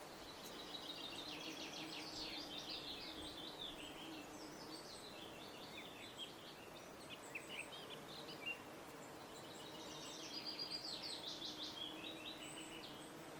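A songbird singing: long, fast phrases of rapid high notes, one in the first few seconds and another in the second half, with scattered single notes between them.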